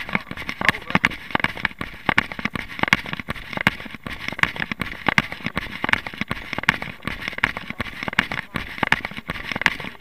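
A runner's footsteps crunching on a gravel track in a quick, even rhythm of about three strides a second.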